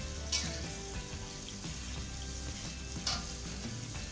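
Water spinach stir-frying in a pan, an even sizzle under background music, with two short sharp clicks, one about a third of a second in and one about three seconds in.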